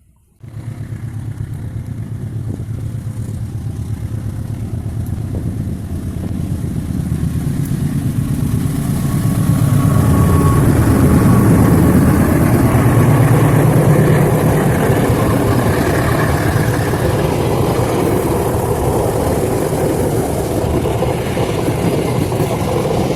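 KAI CC206 diesel-electric locomotive running under power. The engine sound starts abruptly, grows louder over about ten seconds and then holds steady and loud.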